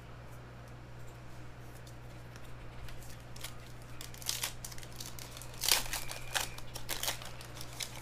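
Foil trading-card pack crinkling and tearing as it is opened by hand, with cards rustling. The loudest crackles come between about four and seven seconds in, over a steady low hum.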